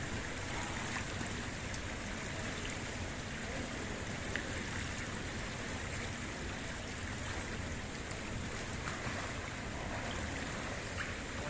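Steady wash of indoor swimming-pool water noise, with a few faint taps.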